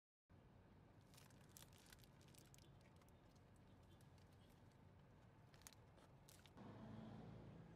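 Very faint paper food wrapper crinkling in a hand, a scattering of soft crackles and clicks over quiet car-cabin room tone; a low hum comes in near the end.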